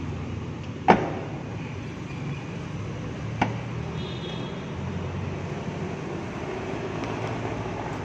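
Suzuki Alto rear door being shut: a loud slam about a second in, then a lighter knock about two and a half seconds later, over a low steady hum. The door closes with no door shock absorbers fitted, the bang that they are meant to soften.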